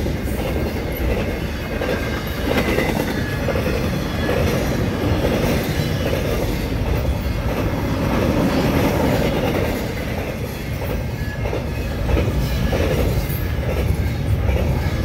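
Double-stack intermodal freight train's container well cars rolling past at speed: a steady rumble of steel wheels running on the rails.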